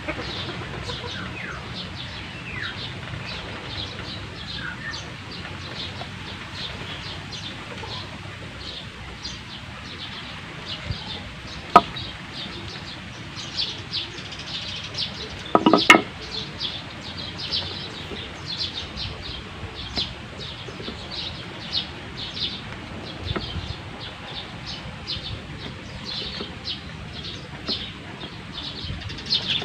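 A small knife carving into a wooden buttstock in a run of short scraping strokes, with chickens clucking and small birds chirping around. Two sharp knocks come about 12 and 16 seconds in.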